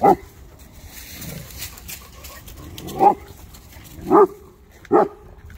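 A large Kangal dog barking four times at pigs behind a wire fence: one bark at the start, then three more close together near the end.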